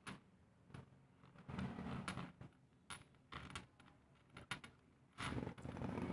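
Metal parts of an XLR plug being fitted back together by hand: a string of light clicks and short scraping, rattling bursts of handling, the longest about a second in and near the end.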